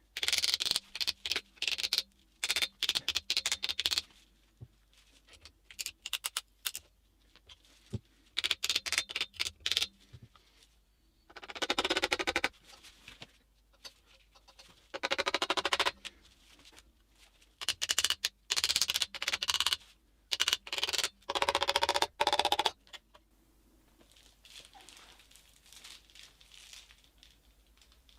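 Hands working on metal engine parts and tools: bursts of rapid clicking, rattling and scraping lasting a few seconds each, with short pauses between, and quieter near the end.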